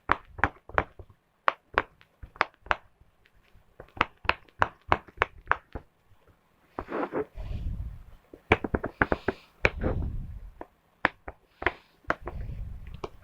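Silicone pop-it fidget toy having its bubbles pressed one after another: a run of sharp pops, about two or three a second, then from about halfway duller handling thuds and rustling mixed with more pops.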